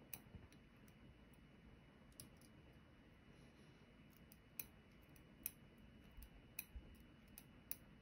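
Faint, irregular small metal clicks and ticks as steel tweezers pick the little sliders out of a Kwikset Smartkey Gen 2 lock core and set them down, about ten over several seconds.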